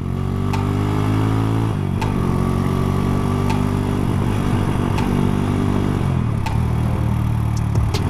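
Motorcycle engine running while being ridden: its pitch climbs, drops sharply about two seconds in, climbs again, then falls away around six seconds in and settles.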